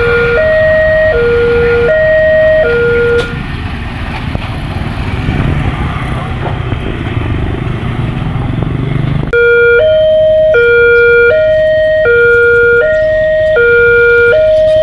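Railway level-crossing warning siren sounding a two-tone hi-lo alternation, changing pitch about every half second; the uploader calls the siren faulty. It cuts out about three seconds in, leaving a few seconds of rumbling noise, then starts again louder about nine seconds in.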